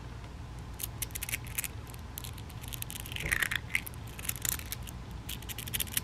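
A cube of small magnetic beads being squished and reshaped in the hands: many small, irregular clicks and rattles as the beads snap against each other.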